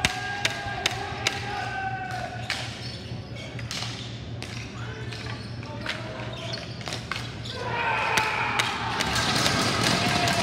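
Ball hockey play: sharp clacks of sticks striking the ball and the ball hitting the boards, over players' shouting. About three-quarters of the way through, the shouting and cheering swell louder.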